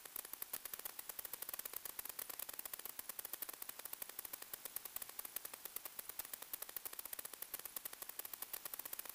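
Radio static from the FPV video link: a steady hiss broken by a rapid, even crackle of sharp clicks.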